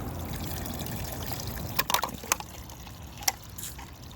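Water trickling and dribbling out of a freshly cut irrigation pipe, running at low pressure with the supply shut off, with a few sharp clicks about two seconds in and again just after three seconds.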